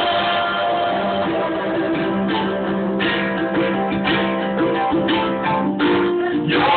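Live worship music led by strummed guitar, with sustained chords underneath.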